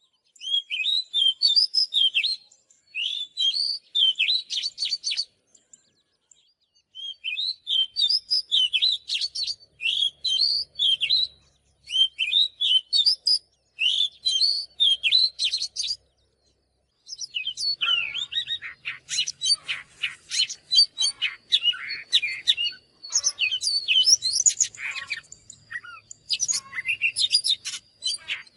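Oriental magpie-robin singing: runs of quick, varied whistled notes and chirps in phrases broken by short pauses, busier in the second half, with a thin held tone under it.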